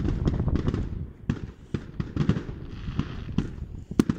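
Fireworks going off: a dense run of bangs and crackles that thins out after about a second into scattered bangs, with one sharp, loud crack near the end.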